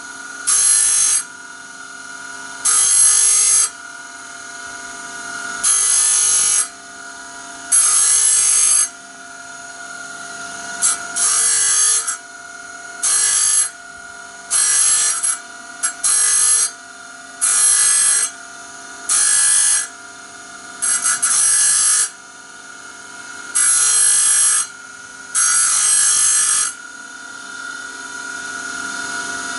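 A small power grinder running steadily while grinding the teeth of a steel band saw blade. About a dozen short, loud grinding bursts come roughly every two seconds as each tooth is touched to the tool and lifted off again, kept brief so the tooth tips don't overheat.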